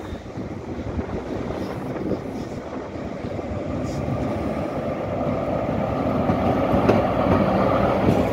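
Fret SNCF BB 75000 diesel-electric locomotive approaching and passing close by, its engine and wheels growing steadily louder, with a steady whine coming in near the end as it goes past.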